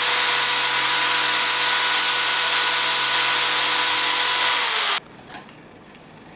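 Electric drill running steadily with its bit boring into a Ulefone Metal smartphone's shattered glass screen, stopping abruptly about five seconds in. Faint handling clicks follow as the phone is picked up.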